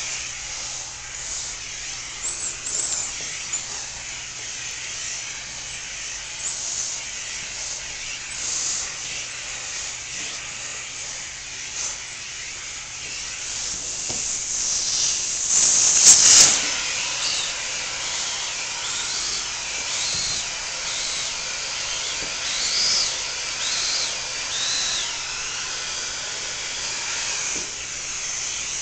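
Vacuum cleaner running with a dusting-brush attachment, its suction hissing steadily as the nozzle is moved over a cat's fur. The air rush swells louder for about a second around sixteen seconds in.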